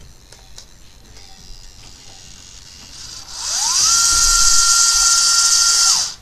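Small electric motor of a remote-control toy dinosaur spinning up about three seconds in with a rising whine, whirring at a steady high pitch for a couple of seconds, then winding down and stopping.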